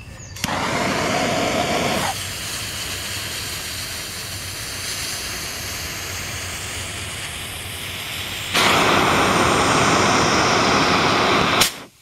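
Green visco fuse burning with a steady hiss, loudest in its first second or so. About eight and a half seconds in, the spolette's rammed black powder time fuse takes over with a louder hissing jet of flame for about three seconds, a burn rate of three seconds per inch, ending in a sharp burst as the flame breaks through the far end.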